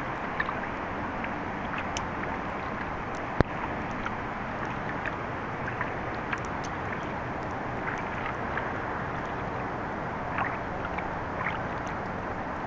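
Kayak gliding over calm water: a steady hiss of water and wind, with scattered faint ticks and one sharp click about three and a half seconds in.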